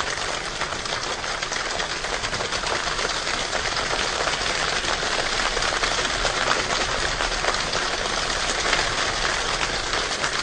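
A large choir imitating rain with their palms and fingers: a dense, steady patter of finger snaps, rubs and palm taps, slowly growing louder.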